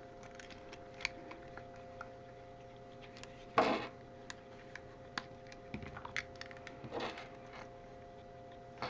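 Faint scattered clicks and taps of hands handling a small plastic key fob and its packaging, with two short rustles, the louder about a third of the way in. A faint steady hum sits underneath.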